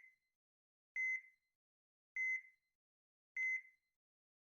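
Evenly spaced high electronic beeps, one steady tone each, repeating about once every 1.2 seconds, each short with a quick fainter echo.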